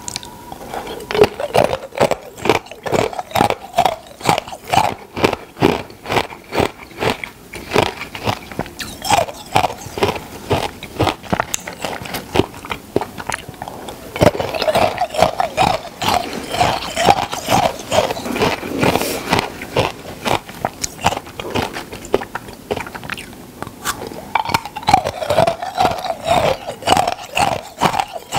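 Close-miked biting and chewing of crunchy food: a rapid run of many sharp crunches and crackles with wet mouth sounds.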